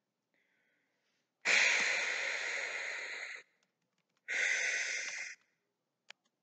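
A person's noisy breath rushing through fingers held over the nose and mouth, twice: a long breath of about two seconds, then a shorter one of about a second.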